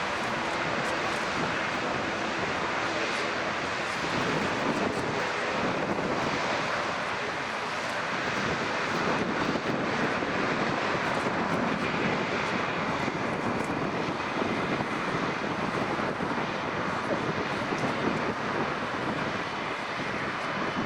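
Airliner's jet engines heard as a steady, even rush of engine noise that holds level throughout.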